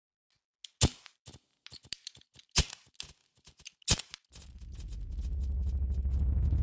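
Sound-design soundtrack: scattered sharp clicks and crackles, three of them loudest, then a low droning hum fades in about four seconds in and keeps growing.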